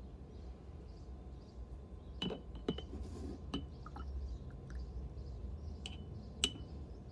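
A paintbrush clinks against a glass rinse-water jar: several light, ringing clinks spread over a few seconds, the last the loudest, with a brief swish of water.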